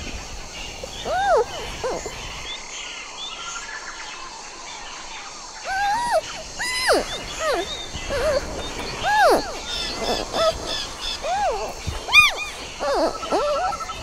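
Giant panda chirping: short arched calls that rise and fall in pitch, one after another. They are sparse at first and come about one a second in the second half. Thin, high bird chirps sound over them.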